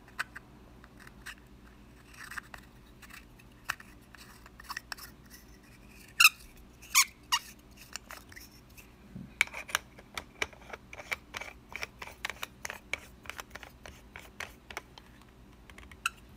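Small clicks, scrapes and ticks of metal lens parts being handled while a lens protection filter is screwed back onto a Canon EX EE camera lens. Two short squeaks come about six and seven seconds in, and a dense run of rapid clicking comes in the second half.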